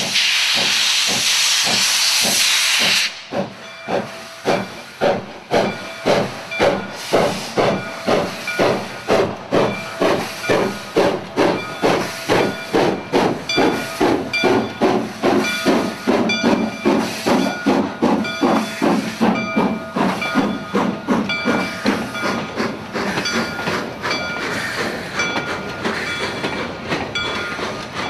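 Soo Line 1003, a 2-8-2 Mikado steam locomotive, starting a heavy freight train. A loud hiss of steam from the open cylinder cocks cuts off about three seconds in. Then come exhaust chuffs that quicken steadily as the train gathers speed, blurring into the running noise of the passing freight cars near the end.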